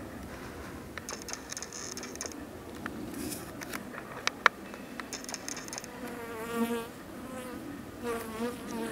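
Honeybees buzzing steadily around a hive entrance, with a louder buzz that wavers in pitch about six seconds in and again near the end, as a bee flies close. A couple of sharp clicks come a little past four seconds in.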